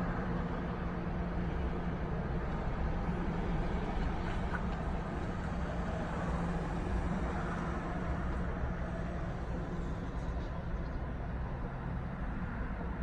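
Steady low rumble and hum, like a running vehicle heard from inside.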